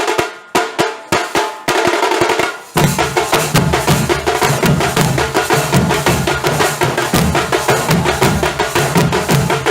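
Nasik dhol ensemble drumming: a few separate strikes at first, then, nearly three seconds in, the whole group breaks into fast, dense drumming with heavy, booming low beats.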